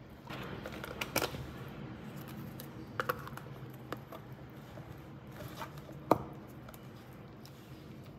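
Scattered small sharp clicks and knocks at irregular intervals, the loudest about six seconds in, over a faint low steady hum.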